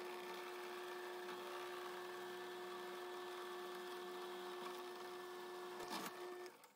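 Drill press running with a steady hum while its bit drills a pin hole through a metal nut and threaded rod. The hum cuts off near the end.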